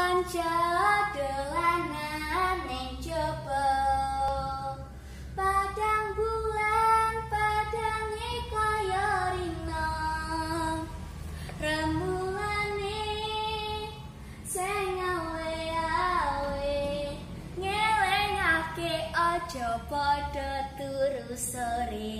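A young girl singing a melody solo, with long held and gliding notes.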